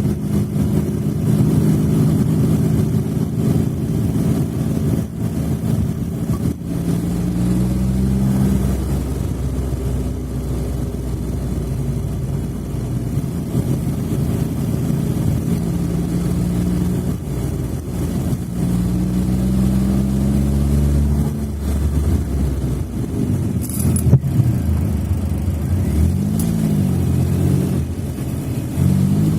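Smart fortwo (451) engine running, its pitch climbing and dropping several times as the engine speed rises and falls. There is a brief sharp click about 24 seconds in.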